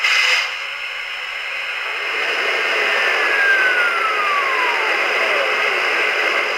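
Steam-hiss sound effects from the Proto-Sound 2 sound system of a Weaver O-gauge PRR K4 streamlined model locomotive: a short louder burst at the start, then a steady hiss that swells, with a thin tone gliding down in pitch through the middle.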